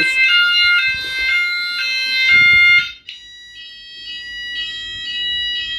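Home fire alarm system sounders going off after a smoke test of a multi-sensor detector, sounding electronic tones that step rapidly between pitches. About three seconds in the sound drops quieter and changes to a slower pattern of two alternating tones.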